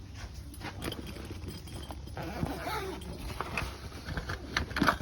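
A handful of irregular sharp clicks and knocks, the loudest just before the end, over a low steady background rumble.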